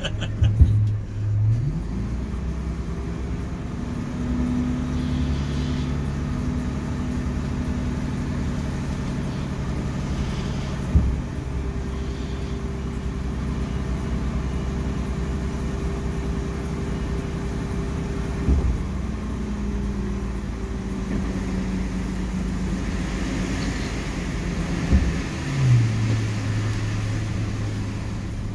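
Volvo truck's diesel engine heard from inside the cab. The revs rise about two seconds in, hold steady at a raised speed, then drop back to idle near the end, with a few short knocks along the way.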